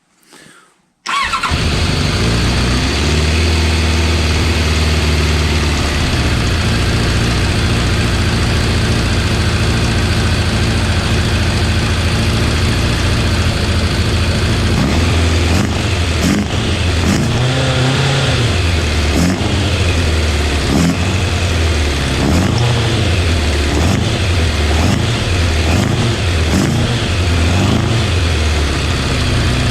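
Motorcycle engine with freshly rebuilt Keihin carburettors catching about a second in and settling into a steady fast idle. From about halfway the revs are repeatedly raised and let fall.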